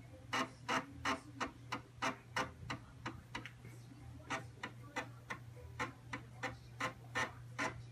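Commodore Amiga A1000's built-in 3.5-inch floppy drive clicking about three times a second as its head steps across the Workbench 1.3.2 disk while it boots, with a short pause about halfway through. A steady low hum runs underneath.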